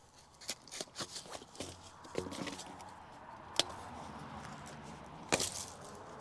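Irregular clicks and knocks with scraping and rustling of hands-on work, likely with plastic water pipe. There are louder sharp knocks about three and a half and five and a half seconds in, over a low rumble from about two seconds in.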